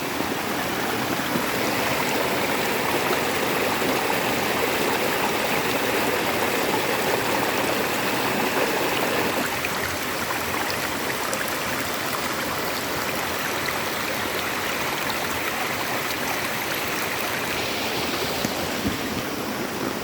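A river's flowing water rushing steadily, as an even noise without a break, a little fuller in the first half.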